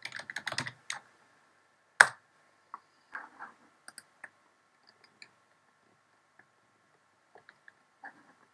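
Rapid typing on a computer keyboard for about a second, then one loud sharp click about two seconds in, followed by scattered faint clicks.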